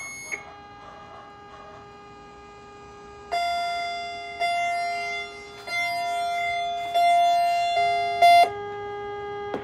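Ceiling speaker of a Notifier VEC 25/50 voice evacuation system: a short electronic beep at the end of the evacuation message, then a steady amplifier hum. About a third of the way in, a run of held electronic tones begins, stepping in pitch and loudness about once a second and loudest near the end.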